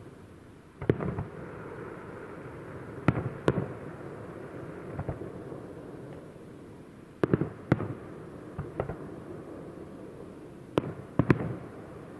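Aerial firework shells bursting overhead: about nine sharp bangs, several in close pairs, each trailing off in a short echoing rumble.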